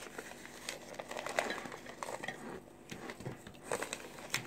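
Close-up chewing of a baked cornstarch chunk, with irregular crunchy clicks and crackles, while more of the starch brick crumbles in the fingers.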